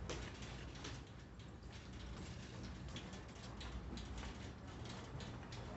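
Faint, irregular clicking and rattling of a shopping cart being pushed along, over the low steady hum of the store.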